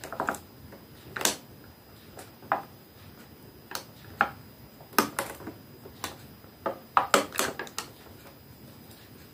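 Irregular light clicks and knocks of hands handling a small toy, a few scattered ones at first and a quick cluster about seven seconds in.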